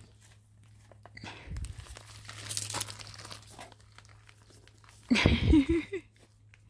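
Rustling and crinkling of a fabric cover and leaves brushed by handling, with a short, louder voice sound about five seconds in.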